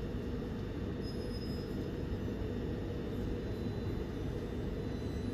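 Class 377 Electrostar electric multiple unit standing at the platform, its onboard equipment giving a steady low hum and drone with a faint high whine.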